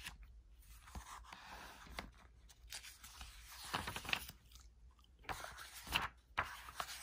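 Thick, slightly glossy map pages of a Bible being turned and handled by hand: a run of soft, irregular paper rustles.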